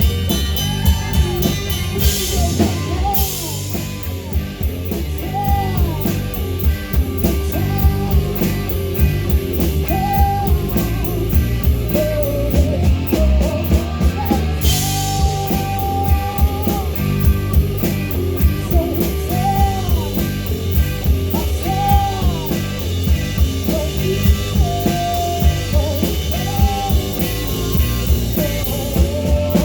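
Live rock band playing a song: drum kit keeping a steady beat under guitars, with a singer's voice carrying the melody. There are cymbal crashes about two seconds in and again around halfway.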